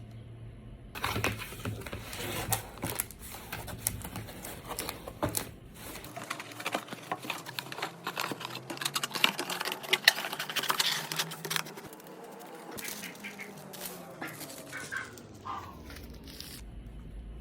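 Hands packing a box, rustling and crinkling paper and packaging, with many small taps and crackles.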